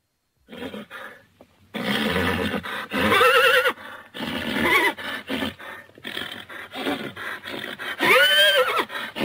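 Horses whinnying: a quavering whinny about three seconds in and a longer one near the end that rises and then falls in pitch, with shorter rough, noisy calls between.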